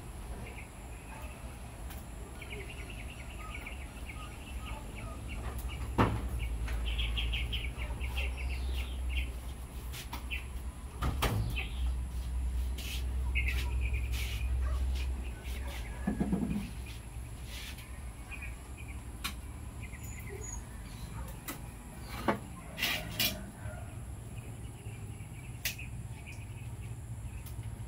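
Metal cooking pots and a plate being handled, giving a few sharp knocks and clinks. The loudest come about six seconds in and again around 22–23 seconds. High chirping calls come in short runs through the first half, over a steady low rumble.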